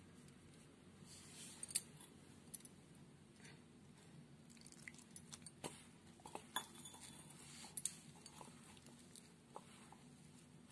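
Hands mixing wheat flour and water into atta dough in a ceramic bowl: soft rubbing and squeezing of damp flour, with scattered light clinks of a metal bangle against the bowl.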